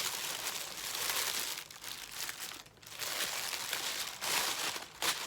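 Crinkling of packaging being handled and unwrapped, with a sharp click near the end.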